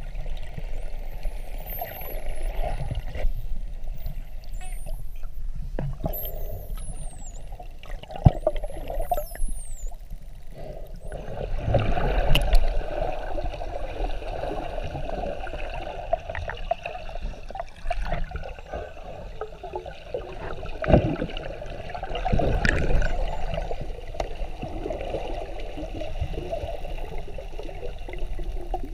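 Underwater sound through a camera housing: water rushing and gurgling past the camera with scattered clicks. Dolphins whistle in high, rising and falling glides through the first several seconds.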